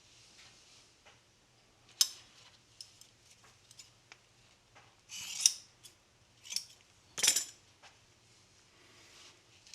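Scissors cutting through exhaust repair heat wrap in a few separate snips, the loudest about seven seconds in.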